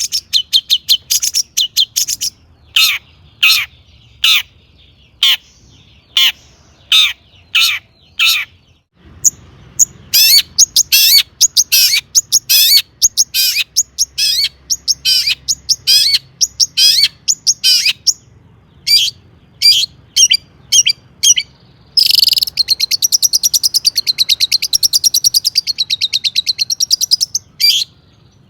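Long-tailed shrike (cendet) singing loudly. A fast run of sharp notes comes first, then separate falling notes about one a second. Busy chattering phrases follow, and near the end comes a long rapid trill lasting about five seconds. It is the vigorous, mimicry-filled song that keepers call 'gacor full isian'.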